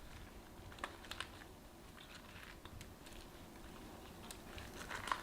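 Hands working salted napa cabbage and seasoned shredded vegetables: soft, scattered crunching and rustling of wet cabbage leaves, with a few sharper clicks about a second in and a louder patch near the end.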